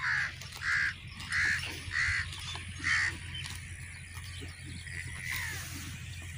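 A bird calling in the background: five short, harsh calls about two-thirds of a second apart, then a few faint chirps about five seconds in.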